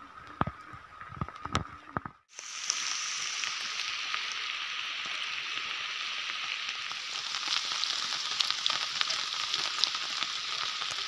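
Steady rain: an even hiss flecked with faint ticks of drops. For the first two seconds only scattered drips and taps are heard, then the steady rain comes in abruptly.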